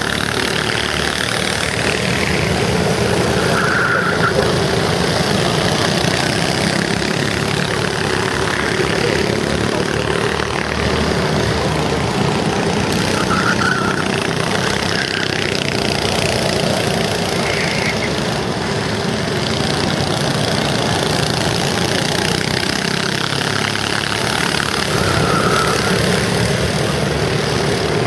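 Go-kart engines running continuously as karts lap the track, with a few short higher-pitched tones over the engine noise.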